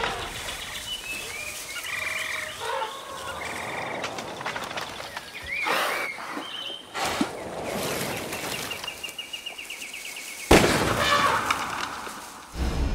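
Wild outdoor ambience with bird chirps and calls, and a long even trill in the middle. About ten and a half seconds in, a sudden loud crash cuts in and fades over a second or two.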